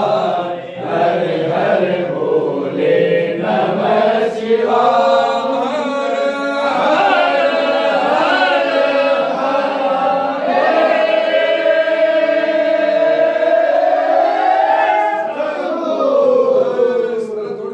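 A group of men chanting together in unison, a Hindu devotional chant with long held notes that slide slowly up and down.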